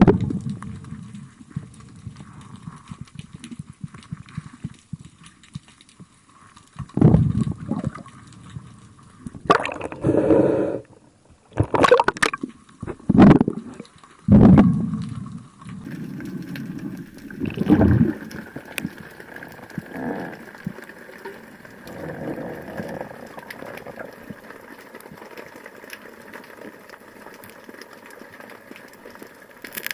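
Water gurgling and sloshing, with about six loud rushing bursts in the middle stretch, then a steadier, quieter wash of water.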